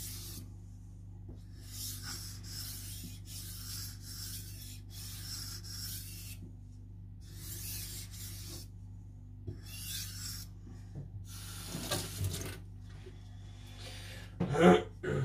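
Knife blade stroked back and forth on a whetstone: a run of scraping strokes, about one a second, with short pauses between runs. A louder bump near the end.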